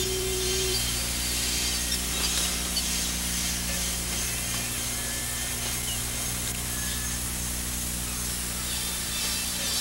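Steady low electrical hum and hiss, with a few faint short high chirps.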